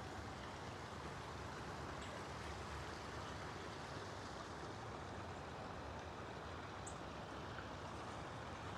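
Water running steadily over a small garden waterfall or stream, with a couple of faint high chirps.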